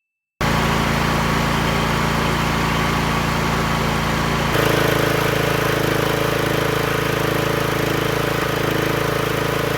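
Small lawnmower engine running steadily. About halfway through, an abrupt cut brings in a second mower engine running with a different note.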